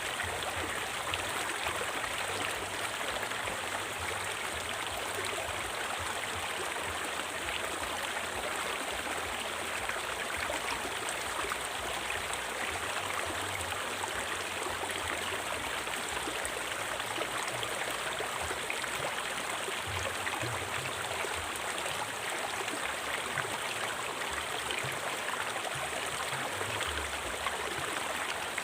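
River water flowing: a steady, even rush of running water with no breaks.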